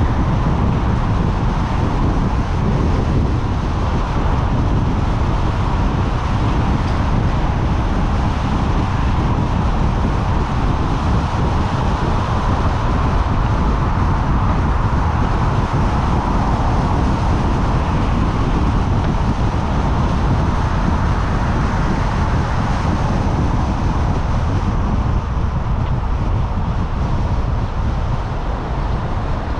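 Steady road and wind noise of a car driving along a city road, a constant low rumble of tyres with a wind haze over it.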